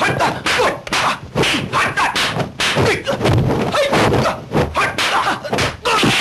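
Kung fu film fight sound effects: a rapid string of punch and block hits with shouts from the fighters.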